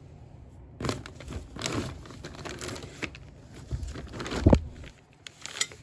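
Packaging rustling as exhaust parts are handled and unwrapped, with a single dull thump about four and a half seconds in.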